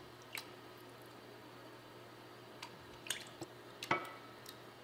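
Sparse light clicks and taps of a wooden spoon and a pouring cup against a saucepan, with small liquid drips, as a flour-and-milk mixture goes into gravy. The loudest knock comes about four seconds in, over a faint steady hum.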